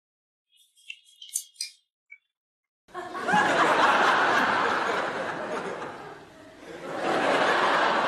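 A few faint ticks, then many people laughing, starting abruptly about three seconds in, easing off briefly near six seconds and swelling again.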